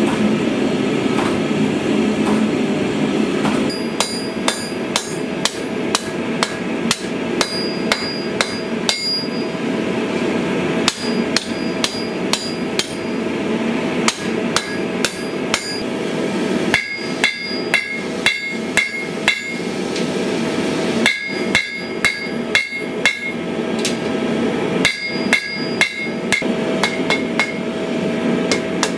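Hand hammer striking a red-hot steel sword blade on an anvil, a long run of blows with the steel ringing, coming in quick bursts in the second half. A steady machine drone sounds alone for the first few seconds before the hammering starts and continues more quietly underneath.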